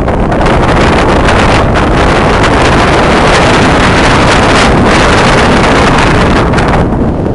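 Loud wind buffeting on the microphone of a camera worn by a mountain biker riding fast down a snow slope, a steady rushing noise that eases a little near the end.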